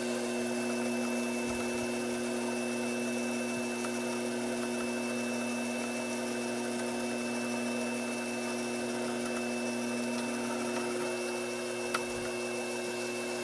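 Sherline vertical mill's spindle motor running with a steady whine while a number 21 screw-machine-length drill feeds down into the workpiece. There is a single small click near the end.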